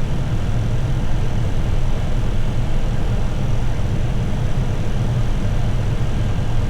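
Steady flight-deck noise of an Airbus A321 on final approach: a constant low rumble with a faint, high, steady tone above it.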